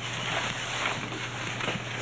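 Electric grinder running with a sanding disc against the cured resin hot coat of a fiberglass surfboard: a steady gritty hiss over a low motor hum.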